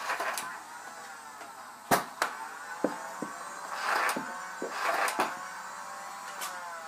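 Nerf blaster battle: a battery-powered blaster's motor whining, its pitch sagging and rising again, with several sharp knocks of foam darts striking, the loudest about two seconds in.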